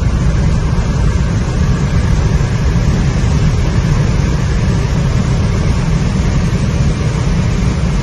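Steady, heavy rumble of wind and tyre noise inside the cabin of a Rimac Nevera electric hypercar at over 250 km/h, mostly deep, with no engine note.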